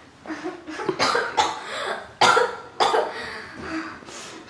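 A young woman coughing hard, about five harsh coughs with softer breathy moans between them, her throat and mouth burning from a super-hot chili chip.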